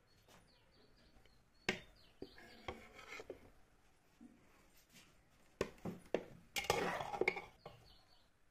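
A metal slotted spoon clinking and scraping against an aluminium pressure cooker pot and a plate as boiled potatoes, cauliflower and peas are scooped out, in several short clattering spells with sharp clicks, the busiest about two thirds of the way in.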